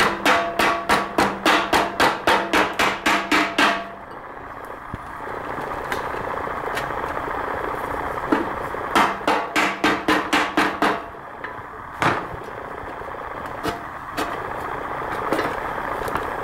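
Rapid metal-on-metal tapping, about five light strikes a second with a slight ringing, in two runs near the start and around the middle, then a few single knocks: a new ball bearing for the idler shaft being tapped into the steel frame of a QT12 rotary rock tumbler until it sits flush.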